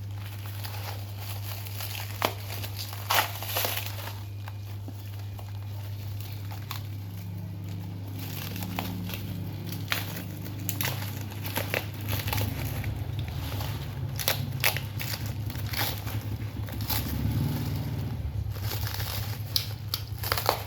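Packaging being handled and crumpled during the unboxing of a new TV, with scattered sharp crackles and clicks over a steady low hum.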